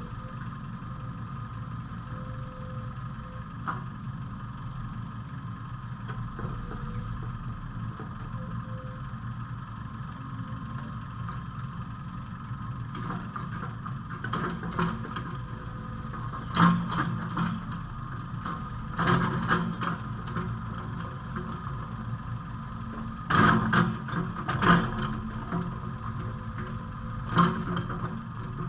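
JCB 8085 midi excavator's diesel engine running steadily, with sharp metallic clanks and knocks in short clusters through the second half, the loudest about two-thirds of the way in.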